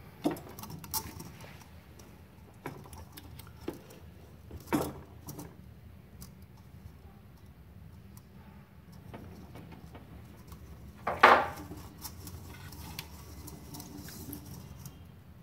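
Scattered small clicks and knocks from handling a welding wire spool on a MIG welder's spool holder and retaining knob, and from unwinding the wire inside the metal cabinet. A louder knock comes about three-quarters of the way through, over a faint steady low hum.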